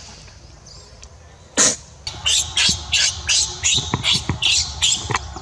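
Infant macaque screaming in distress while its mother grabs and bites it. A loud shriek about a second and a half in, then a rapid series of short, high screams, about three a second, ending shortly before the end.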